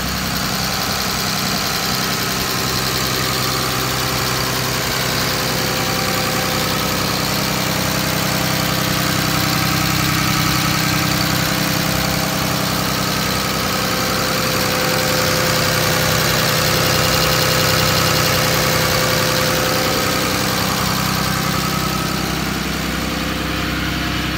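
2012 Ram 5500's 6.7-liter Cummins inline-six turbo-diesel idling steadily.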